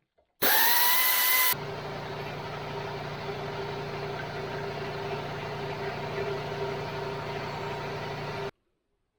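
A motor-driven power tool starts with a loud hiss and a quickly rising whine, then settles about a second later into a steady running hum. It cuts off suddenly shortly before the end.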